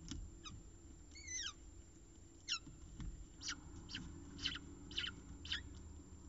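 Peregrine falcon chicks begging while being fed: a run of about ten short, high-pitched calls, each sliding down in pitch, coming roughly every half second.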